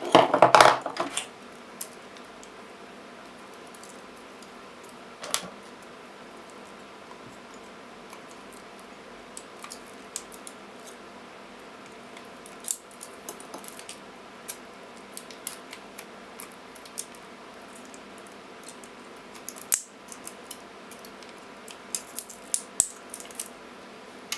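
Hand teardown of a laptop battery pack: a short burst of clatter, then scattered sharp metallic clicks and taps as the 18650 cells and pack parts are pried loose and handled, coming more often near the end. A faint steady hum runs underneath.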